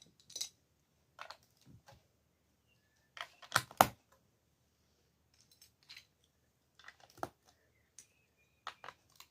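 Lego bricks clicking and clattering as pieces are handled and pressed together, in scattered short clicks, the loudest cluster about three and a half seconds in.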